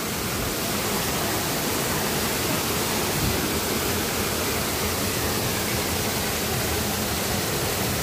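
A large waterfall's water falling, a steady even rush with no break.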